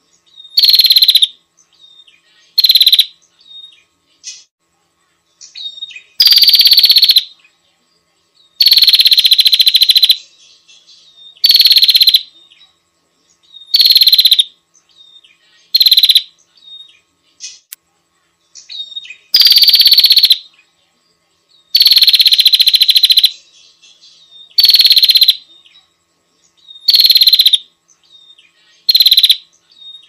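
Prenjak lumut bird lure call: loud, high-pitched calls in short bouts of about half a second to a second and a half, repeated every second or two with short silent gaps.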